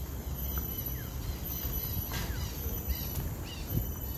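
Forest birds giving a few short chirps and quick falling calls, over a faint steady high-pitched insect drone and a low rumble.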